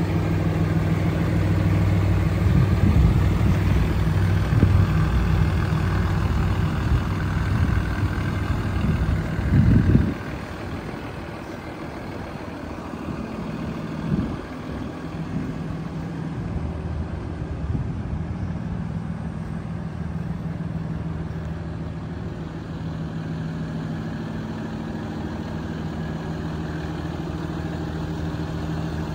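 Cummins 6.7-litre turbo diesel of a 2011 Ford F750 medium-duty truck idling steadily. It is louder for the first ten seconds or so, then quieter.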